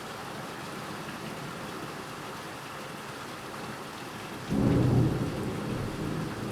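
Steady hiss of heavy rain, then about four and a half seconds in a sudden loud clap of thunder that rumbles low and slowly fades.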